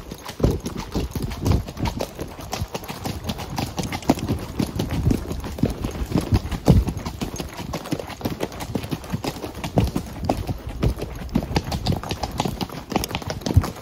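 Horse hoofbeats on a trail while riding, a fast, continuous run of clip-clop strikes.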